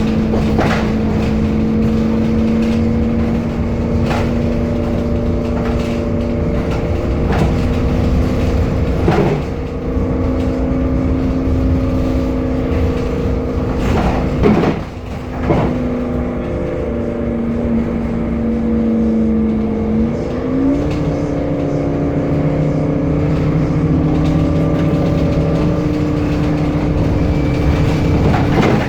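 Temsa Avenue LF city bus on the move: its DAF diesel engine and ZF Ecolife automatic gearbox running with a steady whine, the bus's strange sound. The whine's pitch sags slowly and then rises sharply about two-thirds of the way through, and a few sharp knocks and rattles come through along the way.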